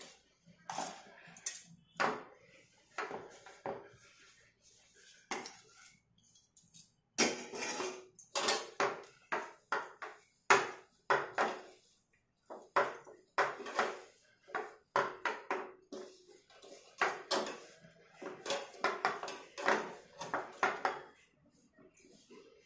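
Hands rubbing and mixing roasted besan and powdered sugar in a wide steel pan: repeated scraping strokes of fingers and crumbly mixture against the metal, irregular, with a short pause about six seconds in.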